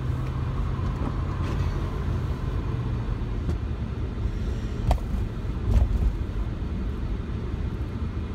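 Car cabin noise while driving: a steady low rumble from the engine and road, with two short knocks about five and six seconds in.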